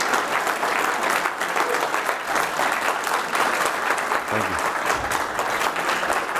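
A roomful of people applauding, a dense, steady clapping, with a couple of low thumps about four and five seconds in.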